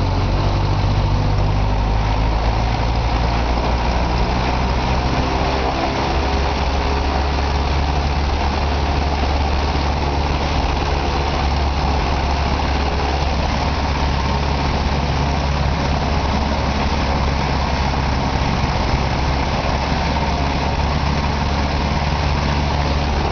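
Cessna 150G's Continental O-200 four-cylinder engine and propeller at high power in a static run-up, heard from inside the cabin. The engine climbs in the first few seconds, then holds steady at about 2,100 rpm, its static RPM.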